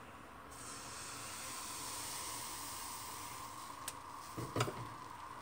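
Baghrir semolina batter sizzling and hissing as it hits a hot frying pan. The hiss starts suddenly and slowly eases off. Two sharp clicks of a utensil come a little before the end.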